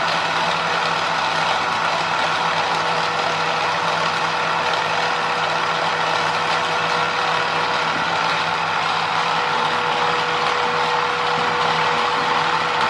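Hot Wheels 2-Speed Power Booster running on its second, faster speed setting: its battery-powered motor makes a steady, loud whir with a constant hum.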